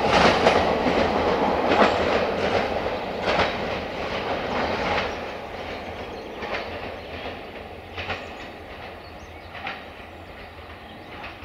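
Diesel multiple unit running away into a tunnel: its wheels click over the rail joints at uneven intervals while the rumble and the clicks fade steadily.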